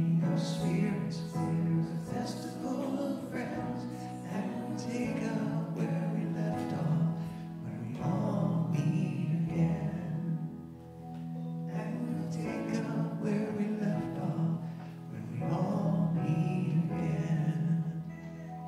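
A man singing a song and accompanying himself on a Yamaha electronic keyboard, with long held chords under the voice.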